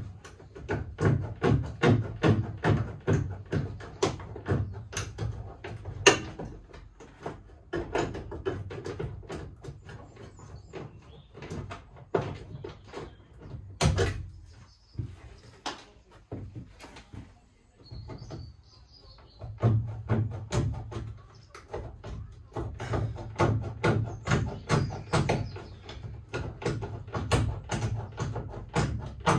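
Hand nibbler chewing through the steel side panel of a VW Crafter van: a steady run of sharp metallic snips, about three a second, which thins out in the middle and then picks up again.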